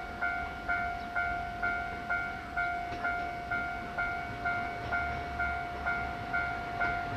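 Railway level-crossing alarm bell ringing, an even ding-ding repeated about twice a second, warning that a train is approaching.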